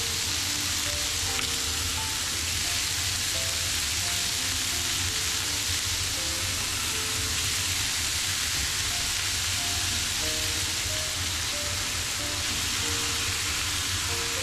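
Food sizzling steadily in a hot frying pan, a dense even hiss, with soft background music notes over it.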